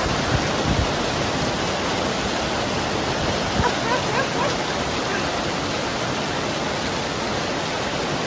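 Heavy rain pouring down: a steady, dense hiss.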